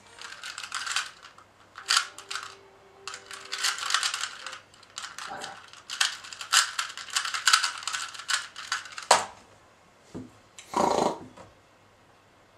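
A 2x2 speed cube turned rapidly by hand in a timed solve: a dense run of plastic clicking and clacking for about nine seconds, ending in a sharp knock as the solve ends. A short noisy burst follows about two seconds later.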